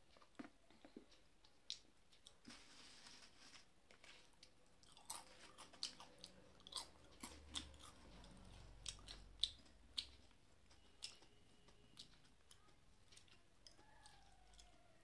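Close-miked eating sounds: a sip of dal from a small bowl near the start, then chewing with a run of short, sharp crunches of fried potato chips through the middle.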